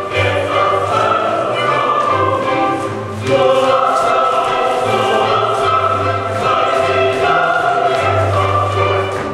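Latvian folk dance song sung by a group of voices with instrumental accompaniment and a steady bass, playing for a ring dance.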